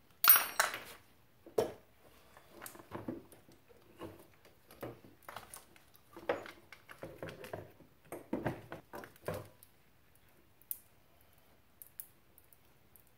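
Gloved hands working on the carburetor of a Honda TRX90 quad. A loud rustle with clicks comes first, then scattered small knocks and rustles. It goes quieter after about nine and a half seconds, with only a few faint clicks.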